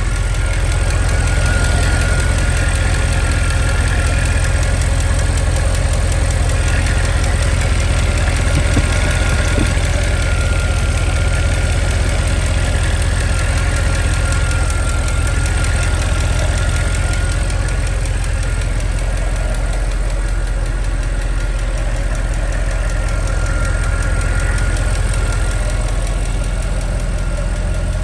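Mercedes-Benz M156 6.2-litre V8 of a 2008 S63 AMG idling steadily and smoothly, once running after a hard crank start.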